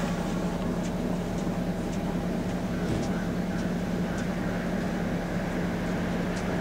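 Steady background rumble of a railway station, with a constant low hum and a few faint ticks, and no train passing.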